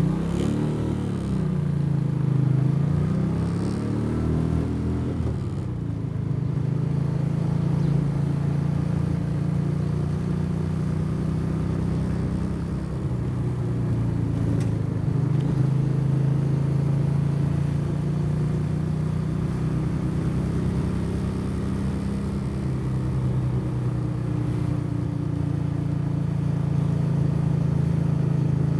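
Motorcycle engine heard from the rider's seat while riding, its pitch falling and rising again in the first few seconds, then running at a steady cruising speed.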